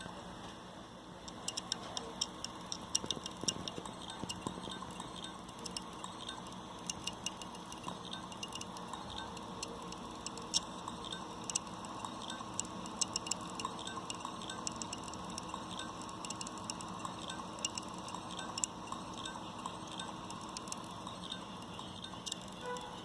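Failing hard disk drive clicking and ticking irregularly, often in quick clusters, over the steady whir of the running drive. Such clicking is the typical sign of a bad drive.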